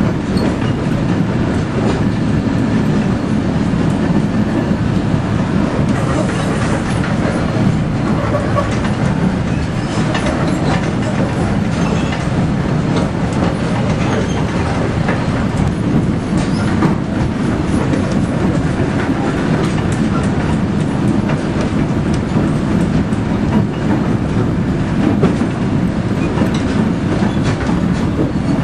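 Narrow-gauge diesel locomotive running steadily along the line, heard from its cab: a constant engine drone with the wheels clicking over the rails.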